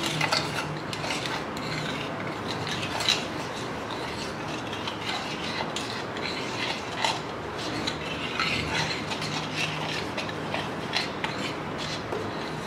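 A plastic spoon stirring and scraping a thick, oily spice paste in a plastic bowl. The wet scraping runs on without a break, with irregular clicks of the spoon against the bowl and a sharper knock about three seconds in.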